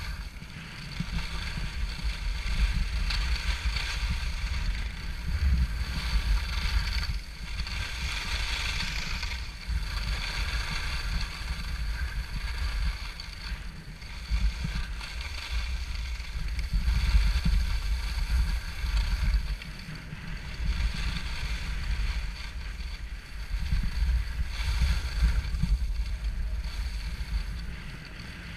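Wind buffeting an action camera's microphone as the skier moves downhill, a heavy rumble that swells and eases every few seconds, over the hiss of skis sliding on packed snow.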